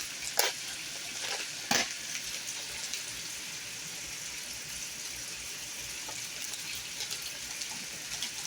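Hot oil sizzling steadily in a pan of frying chicken, with two short knocks in the first couple of seconds.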